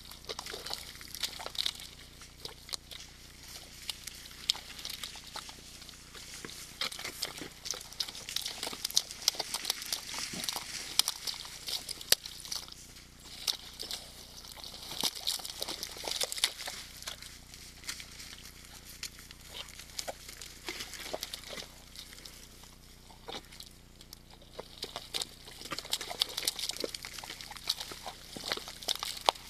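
Red deer moving through a mud wallow: irregular short splashes and squelches of hooves in wet mud, coming and going in busier and quieter spells.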